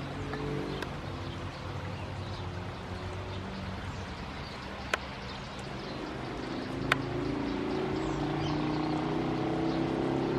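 Steady low hum of a motor vehicle engine, growing louder in the second half, with faint high chirps of small birds and two sharp clicks about five and seven seconds in.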